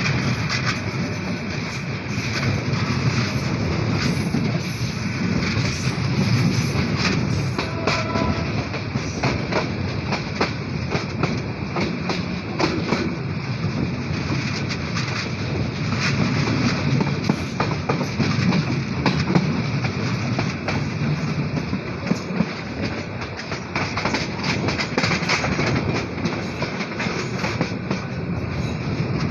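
Passenger train running along the track, heard from the open doorway of a moving coach: a steady rumble and rush with the wheels clattering over the rail joints.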